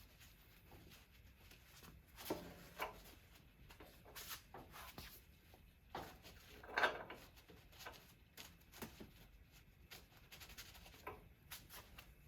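Faint, irregular rubbing and scuffing strokes of grime being wiped and cleaned out of a motorcycle's rear-wheel area by hand, with an occasional louder scrape about seven seconds in.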